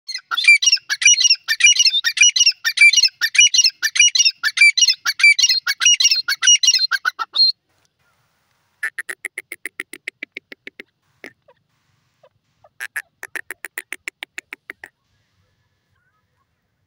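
Grey francolin calling: a loud, fast run of repeated shrill phrases lasting about seven and a half seconds, then after a short pause two separate series of rapid, evenly spaced lower notes, each about two seconds long.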